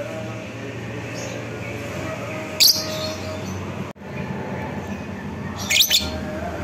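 Fischer's lovebird giving short, shrill, high-pitched chirps: one a little under three seconds in and a quick double chirp near the end, over a steady background hum.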